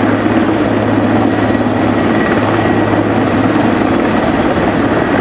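Denel Rooivalk attack helicopter with twin Makila turboshaft engines flying close by: a loud, steady thrum of the main rotor with a thin steady turbine whine above it.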